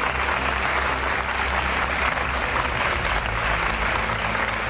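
Audience of students and parents applauding, steady clapping under a shelter roof.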